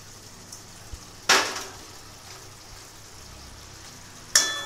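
A metal spatula clatters and scrapes against a metal kadai twice, about a second in and again near the end; the second time it rings briefly. Underneath is the faint, steady sizzle of the curry reducing over the flame.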